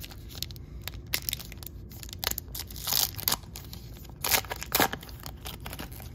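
A baseball card pack's wrapper being torn open at its crimped seal and crinkled back as the cards are pulled out: a run of short, irregular rips and crackles, the loudest about three seconds in and again between four and five seconds.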